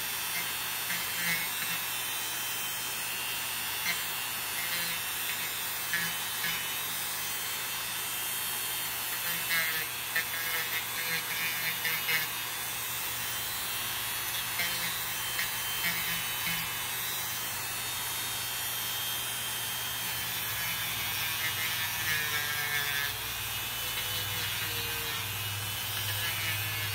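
Handheld electric rotary tool running steadily with a small grinding bit, grinding down thick, fungus-damaged toenails, with a scratchy grinding that comes and goes as the bit is pressed to the nail.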